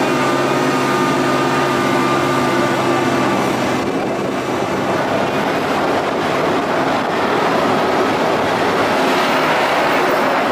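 Casey Jr. Circus Train running along its track: a steady whine for the first few seconds that fades out about four seconds in, over a continuous rumble of the moving train.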